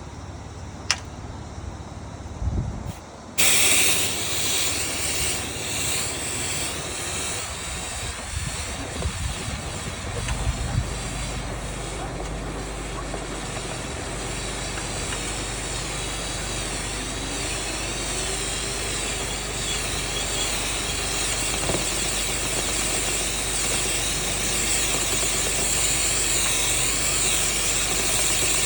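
Powered vent-cleaning equipment switching on about three seconds in with a sudden, loud, steady rush of air. A low steady hum joins about ten seconds in and runs on under it.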